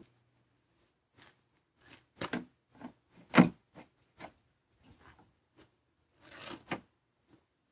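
A series of light knocks and rubs as hands handle a fibreglass targa roof panel resting on metal trestles, the loudest knock about three and a half seconds in.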